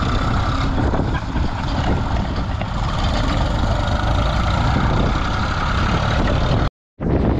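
Small vintage tractor engine running steadily as it pulls a mounted plough through stubble, with heavy wind rumble on the microphone. The sound drops out for a moment near the end.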